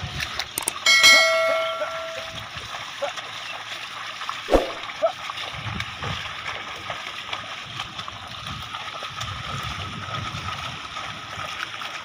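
A bright electronic chime rings about a second in, the loudest sound here, from a subscribe-button animation. Around it, bullocks and a plough splash and slosh through flooded paddy mud, with soft low thuds of hooves in the mud and a single sharp knock near the middle.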